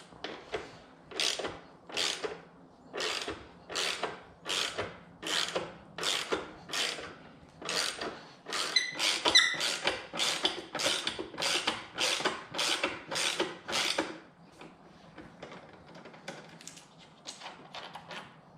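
Ratchet wrench with a T40 Torx bit clicking in repeated back-swings, about two strokes a second, as bolts are loosened and backed out. About 14 seconds in the strokes give way to fainter, quicker clicking.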